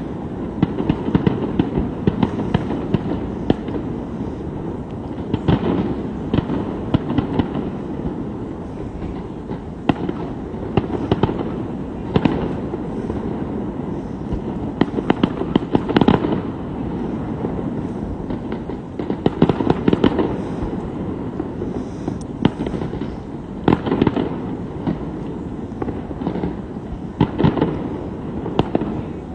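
Fireworks display: rapid sharp bangs and crackles coming in clusters every few seconds over a continuous rumble.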